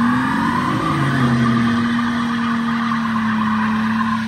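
Chrysler 300 sedan doing a burnout: the engine revs up over the first second, then is held at steady high revs while the rear tyres spin and squeal.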